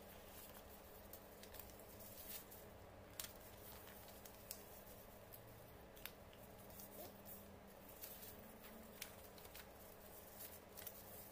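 A sheet of paper being folded and creased by hand: faint, scattered rustles and small sharp clicks as the folds are pressed flat.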